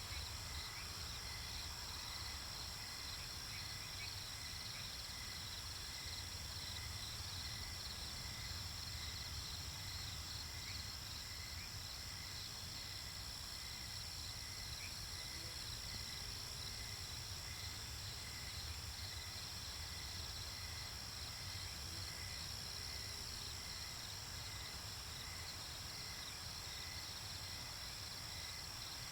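Night-time nature ambience: crickets chirping in a steady, many-voiced chorus with fast pulsing trills, over a low background rumble.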